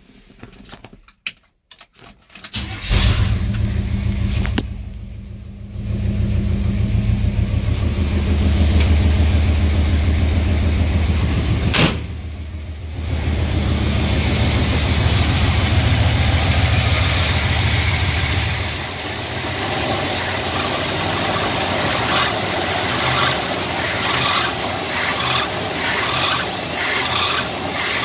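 The original 402 big-block V8 in a 1972 Chevy C10 catching about three seconds in on its first start after sitting about 20 years, fed from a temporary boat gas tank. It then runs on with two brief dips, and near the end it is revved in quick repeated blips at the carburetor.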